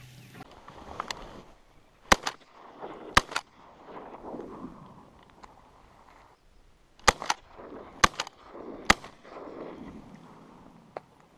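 Shotgun shots at ducks: about five loud shots in two groups, two about a second apart near the start and three close together later on, each followed by a rolling echo, with fainter shots about a second in and near the end.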